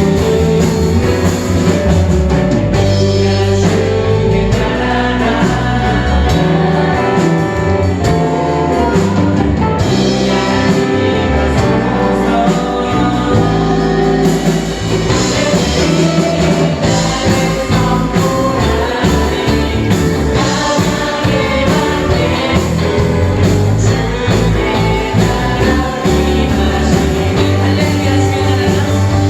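Church praise team singing a worship song together, with live band accompaniment.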